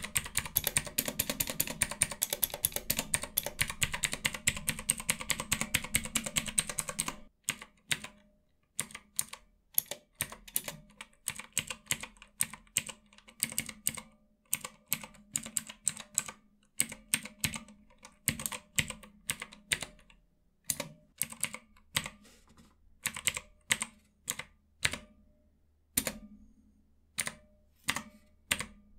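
Mechanical numpad with Outemu Blue clicky switches being typed on: rapid continuous keystrokes for about the first seven seconds, then slower separate key presses, each a sharp click.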